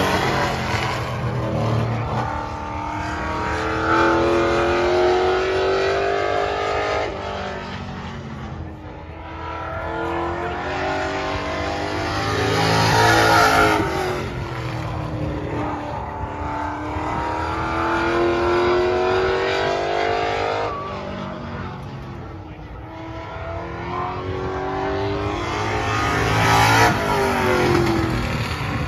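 A single stock car lapping an oval track. Its engine climbs in pitch along the straights and drops off into the turns, growing loud each time it passes, about every 13 to 14 seconds.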